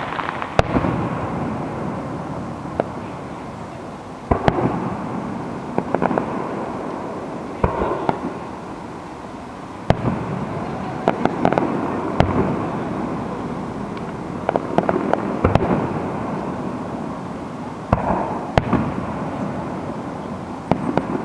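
Aerial fireworks shells bursting one after another, about a dozen sharp bangs each trailing off in an echo that fades over a second or two. Twice, around the middle, several bursts come in quick succession as rapid pops.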